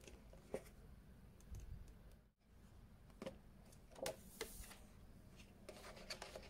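Faint handling of a cardboard earphone box: light taps and rubbing as the inner box slides out of its sleeve and the lid is opened. There is a brief papery swish about four seconds in, and a few small clicks near the end as fingers touch the case inside.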